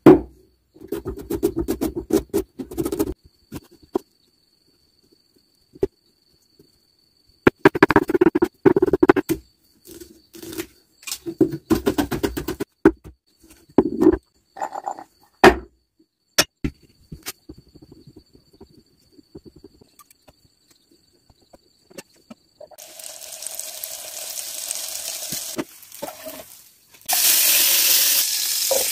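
A kitchen knife chopping an onion on a wooden cutting board, in quick runs of strokes with pauses between. Later, butter in a hot non-stick frying pan hisses softly, then sizzles loudly from about two seconds before the end.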